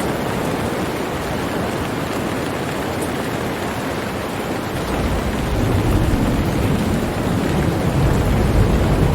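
Steady heavy rain hiss, with a low rumble of thunder rising about halfway through and rolling on to the end.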